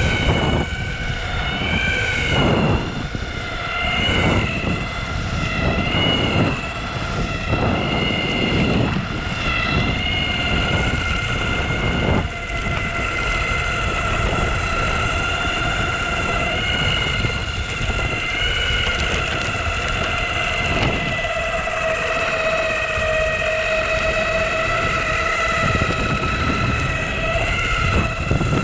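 Onsra Black Carve belt-drive electric skateboard under way: the motors whine steadily in several high tones that drift a little in pitch with speed, over wind and wheel rumble that swells and dips.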